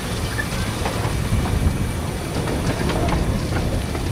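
A 15-inch-gauge narrow-gauge train running along the track, heard from an open passenger coach: a steady low rumble with irregular clicks of the wheels over the rails.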